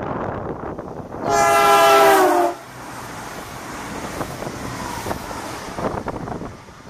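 Irish Rail 22000 Class InterCity diesel railcar running through the station at speed. The rush of its approach is followed about a second in by a loud horn blast lasting just over a second, whose pitch drops as the train passes. Then comes the rumble of the passing train with scattered wheel clicks, fading as it goes away.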